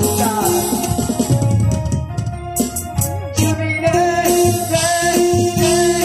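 A singer singing into a hand-held microphone over loud backing music with keyboard and bass, holding long notes.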